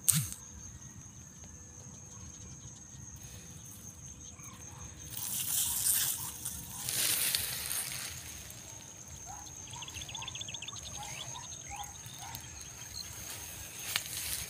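Outdoor rice-paddy ambience: a soft steady hiss with a faint constant high-pitched tone, two swells of rustling as the camera moves through the rice plants about five and seven seconds in, and a run of faint short chirping calls after that. A sharp click right at the start.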